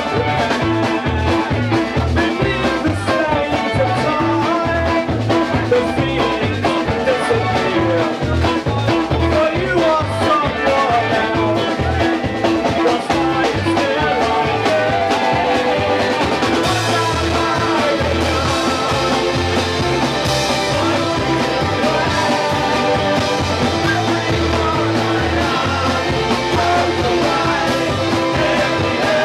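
Live band playing a song: a singer at the microphone over hollow-body electric guitar and upright double bass, with a steady rhythmic bass pulse.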